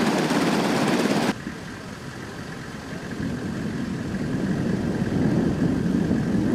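UH-60 Black Hawk helicopter running on the ground with its rotor turning, loud, cutting off sharply about a second in. Then a distant formation of Black Hawks, a low rotor rumble that grows steadily louder as they approach.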